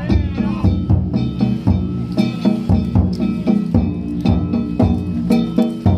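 Danjiri-bayashi festival music: a taiko drum and hand gongs (kane) beating a fast, driving rhythm of several strikes a second, the gongs ringing over the drum.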